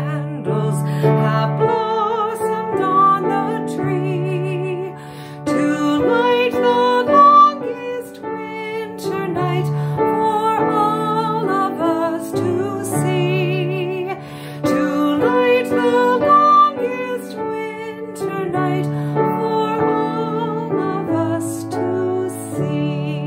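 A woman singing a slow hymn with vibrato, over a sustained piano accompaniment.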